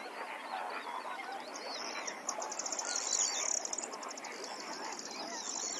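Many birds calling at once in a dense chorus of overlapping chirps and short whistled glides, joined from about a second and a half in by a high, fast trill.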